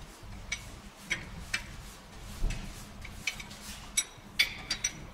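Irregular sharp metallic clinks and taps of hand tools, such as wrenches, knocking against metal, about ten in all, most of them in the second half.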